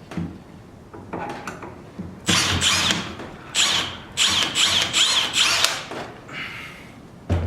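Power drill/driver run in short trigger pulses on a bolt, its motor whine rising and falling several times in quick succession, with a few clicks between.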